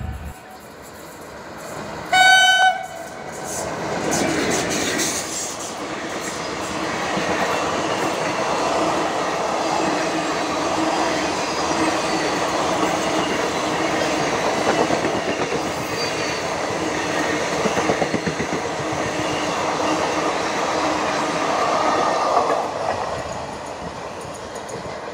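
A short horn blast from the WAP-4 electric locomotive about two seconds in. Then the steady rushing and rattling of its ICF coach train running through at speed, wheels on the rails, which eases off near the end as the train moves away.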